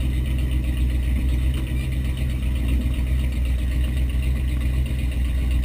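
V8 engine of a mud-racing Jeep running steadily without revving, heard from inside the cabin.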